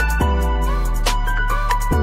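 Background music: a sustained deep bass note with a melody over it and regular percussion strikes.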